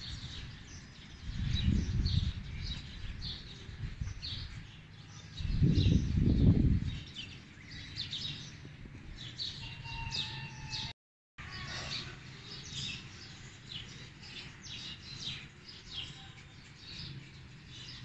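Many small birds chirping. Wind buffets the microphone in two strong gusts, about a second and a half in and again around six seconds in.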